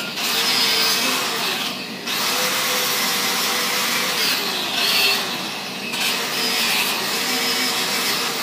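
Electric angle grinder with a wire wheel running against a rusty steel rear-axle housing, scrubbing off rust and scale. The grinding eases off briefly about two seconds in and again about six seconds in.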